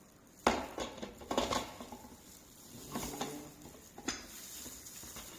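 Plastic parts of a slow juicer being handled and fitted together: several sharp knocks and clicks, about half a second in, around a second and a half, near three seconds and again near four seconds.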